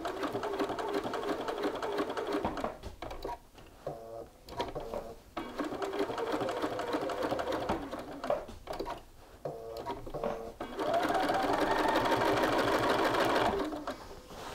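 Bernina sewing machine stitching through shirt fabric in short stop-start runs, then running faster and steadier for about three seconds before stopping near the end.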